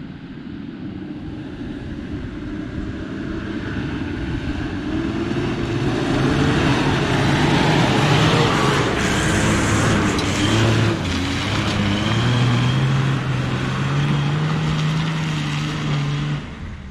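Toyota Land Cruiser 80 Series four-wheel drive climbing a steep, loose dirt hill and passing by, its engine working under load with the revs slowly climbing and tyres crunching over the dirt. The sound builds to its loudest midway and drops off sharply near the end.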